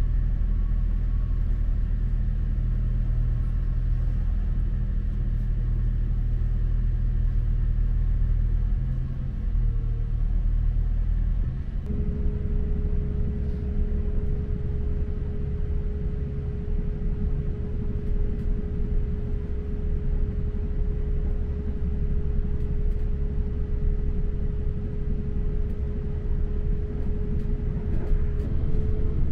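Diesel passenger train heard from inside the carriage while running: a steady engine drone over a low rumble from the wheels and track. About twelve seconds in, the engine note changes and a steady high hum sets in for the rest.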